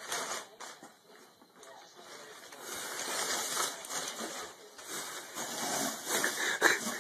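Clear plastic packaging crinkling and rustling as it is grabbed and pulled out of a cardboard box, in uneven surges, with the box's cardboard rubbing.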